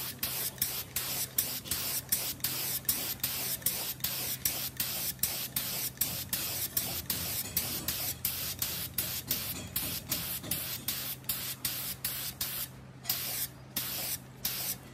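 Gravity-feed paint spray gun hissing as it sprays paint, the hiss pulsing about three times a second with a couple of brief breaks near the end. A steady low hum runs underneath.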